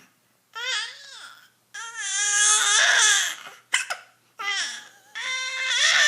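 A baby "singing": three drawn-out, high-pitched wordless vocal phrases with wavering pitch, the middle one the longest and loudest. A short, sharp vocal catch between the second and third phrases fits a hiccup, since the baby has hiccups.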